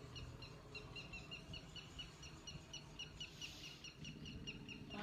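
Bird calling: a short, falling chirp repeated steadily about three times a second, over a low outdoor rumble.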